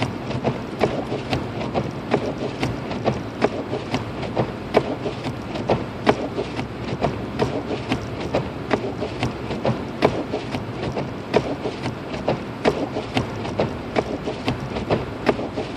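Lexus IS250 AWD driving through a snowstorm: steady road and tyre noise with a fast, constant run of small clicks and knocks, several a second.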